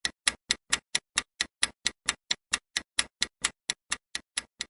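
Quiz countdown timer sound effect: clock-like ticking, fast and even at about four to five sharp ticks a second.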